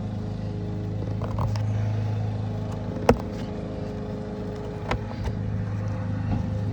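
Steady low hum of a vehicle running, heard from inside the cabin, with a sharp click about three seconds in and a lighter one near five seconds from a pry tool working the door's speaker grill.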